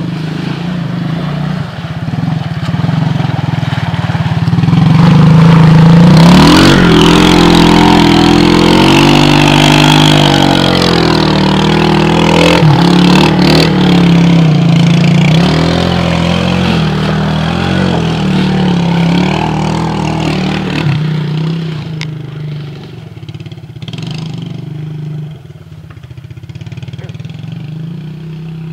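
ATV engine revving hard as it ploughs through deep muddy water, the engine note rising and falling with the throttle over the churning splash of the tires. It grows louder a couple of seconds in, is loudest through the middle, and fades toward the end as the machine moves off.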